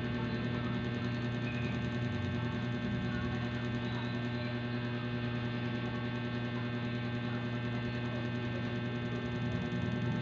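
Steady electrical hum and buzz, even in level, made of several fixed tones with no rhythm or break.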